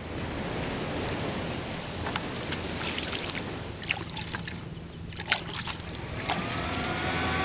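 Steady surf and wind noise with a run of close, sharp clicks and scrapes. Music fades in near the end.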